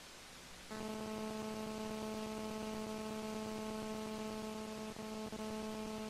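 A steady electronic buzz, one constant pitch with a stack of overtones, starts about a second in and holds level, with two brief dropouts near the end.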